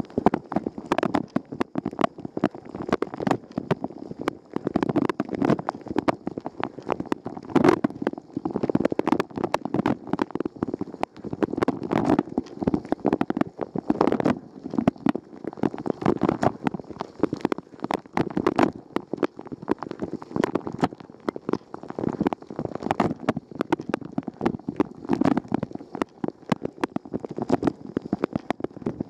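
Wash water spraying and splashing inside a Rosenlew dishwasher during its wash cycle, heard from inside the tub: a dense, irregular spatter of water hitting the walls, swelling and easing in surges every second or two as the spray arm turns.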